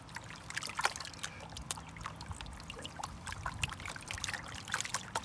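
Water sloshing, dribbling and splashing in a plastic gold pan as a slurry of crushed ore is swirled and shaken in a tub of water, with many small irregular drips and splashes.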